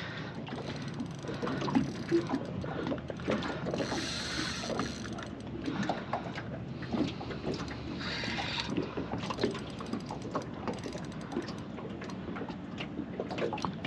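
Fishing reel being wound in against a hooked fish, its gears and mechanism giving a steady run of small irregular clicks and ticks.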